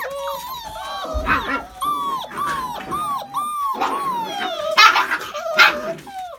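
A litter of nearly six-week-old deerhound-greyhound x whippet lurcher puppies whining and yipping over one another in short, falling cries. A few louder, rougher yelps come about a second in and twice near the end.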